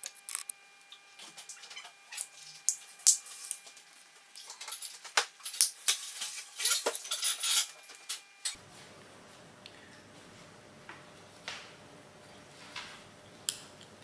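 Small flat-blade screwdriver prying apart the plastic shell of a Holden Commodore VR–VZ key fob: a dense run of sharp clicks, scrapes and snaps of metal on hard plastic. After about eight seconds the case is open and there are only occasional fainter clicks and taps as the screwdriver works at the coin battery.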